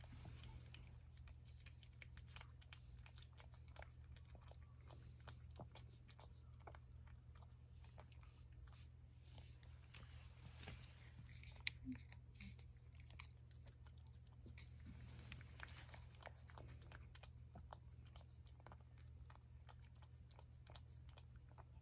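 Faint, wet clicking of a cat licking a Churu paste treat from a small ceramic dish, with one louder click near the middle.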